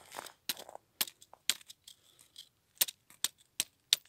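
About a dozen sharp, irregular clicks and crackles of ice and frozen ice-fishing tackle being worked by hand at a hole that has frozen over.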